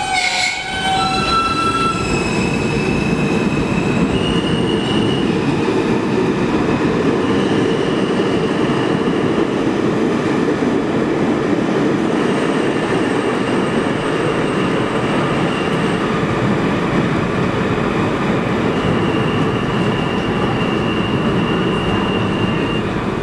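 New York City Subway R160 train pulling out of a station: a steady, loud rumble of wheels on rail, with high-pitched wheel squeal that comes and goes.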